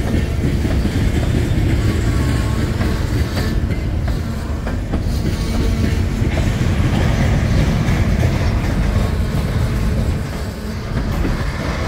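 Freight train of covered hopper cars rolling past close by: a steady rumble of steel wheels on the rails, with clickety-clack from the wheels.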